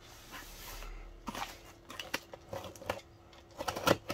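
Cardboard parcel and its plastic wrapping rustling and scraping as it is handled and unwrapped, with scattered small taps and a few sharper clicks near the end as a snap-off utility knife is brought to the taped seam.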